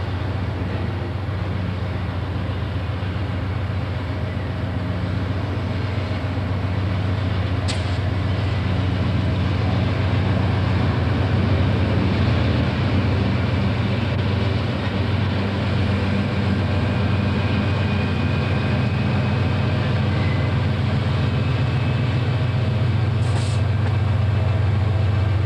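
Two diesel-electric locomotives, NR class NR1 leading 82 class 8236, hauling a steel train past at low speed: a steady deep engine drone that grows louder as they approach.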